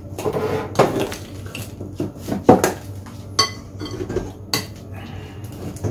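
Metal fork mashing soft boiled potatoes in a glass bowl, clinking and scraping against the glass in irregular strokes.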